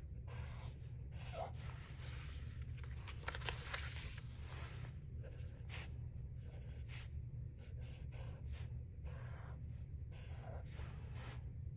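A felt-tip marker drawing short strokes on paper, faint, over a steady low hum.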